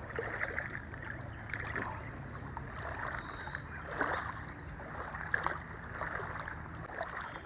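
Riverbank ambience: wind over choppy, rippling river water lapping at a rocky shore, under a steady low rumble, with a few soft splashes or knocks.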